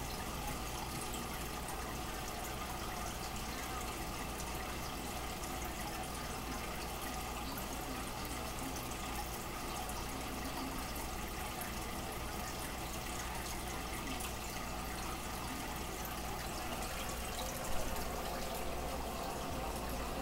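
Aquarium filter and aeration running: a steady trickle and bubbling of water over a low, even pump hum, with one short louder sound near the end.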